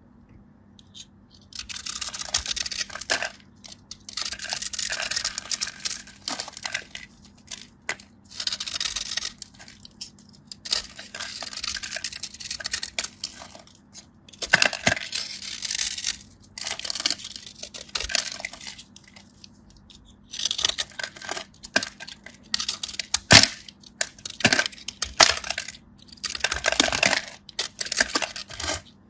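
Close-up crisp crackling and crunching in bursts of a second or two, with sharp clicks between: brittle material or packaging being crushed or torn by hand.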